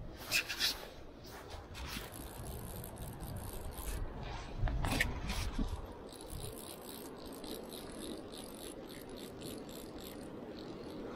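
Nylon jacket sleeve rubbing and brushing against the camera microphone as the arm moves, with scattered sharp clicks and a louder low bump of handling about halfway through.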